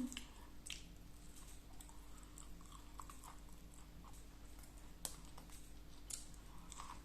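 A person chewing a mouthful of food, with soft mouth sounds and a few sharp clicks.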